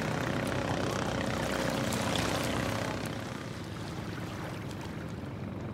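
Steady engine drone with a constant low pitch. Small splashes of shallow water sound over it for the first three seconds, then stop.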